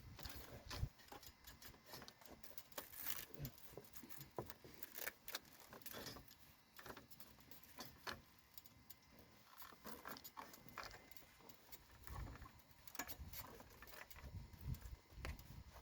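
Faint, irregular light clicks and knocks, with a few dull thumps about twelve and fifteen seconds in.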